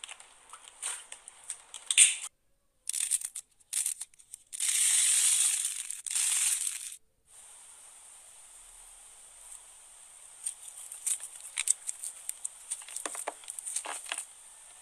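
Slime being squeezed, kneaded and pulled apart by hand, giving sticky crackling and popping. A loud, continuous crackling stretch runs from about five to seven seconds in. After that come quieter scattered clicks, with a few squelches near the end.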